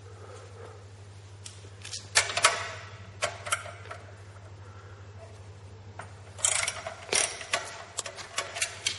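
Socket ratchet wrench clicking in short bursts as a motorcycle exhaust mounting bolt is turned, with a longer run of clicks from about six and a half seconds in.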